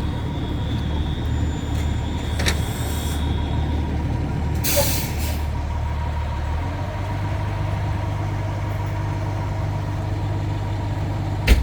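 Fire truck's diesel engine idling steadily, with a short hiss of air brakes about five seconds in. The engine note changes about seven seconds in, and there is a sharp knock near the end.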